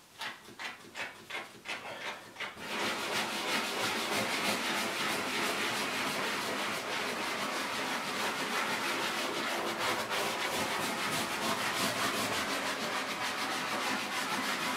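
Small dish scrub brush scrubbing foam leather cleaner into a leather couch cushion in quick circular strokes with light pressure, a steady scratchy rubbing from about two and a half seconds in. Before that come a string of short spritzes from a pump foam sprayer.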